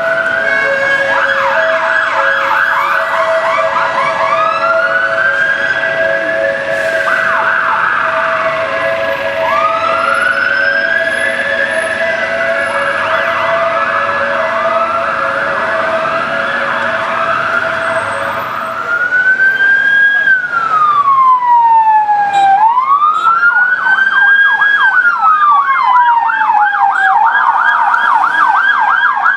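Several emergency-vehicle sirens sounding over one another: slow wails rising and falling mixed with fast yelps, over a steady lower two-note tone. About 19 s in, a nearer, louder police siren takes over, wailing slowly down and back up, then switching to a fast yelp near the end.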